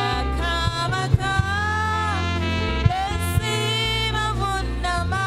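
Live gospel worship music: a trumpet plays a gliding melody over a steady bass line, with a few sharp drum hits.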